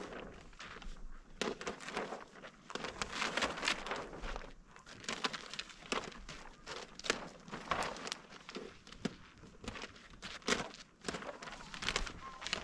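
Plastic sheeting rustling and crinkling as it is pulled and gathered up off a roof of wooden boards, with scattered knocks and steps on the boards.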